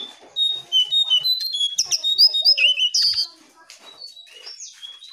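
Jongkangan songbird singing a fast, busy run of high chirps and whistled notes, loudest in the first three seconds and softer after. It is a lure song (pancingan) played to get caged jongkangan to start singing.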